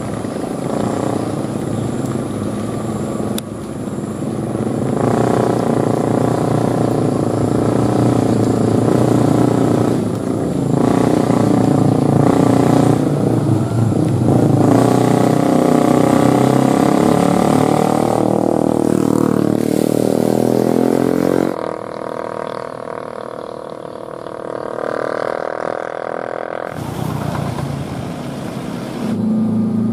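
Road vehicle engines climbing a steep hill: a motorcycle running close by, with heavier oil-palm truck and car engines in low gear behind it, their pitch sliding as they pass. About two-thirds of the way through the sound drops abruptly to a quieter stretch, then comes back up near the end.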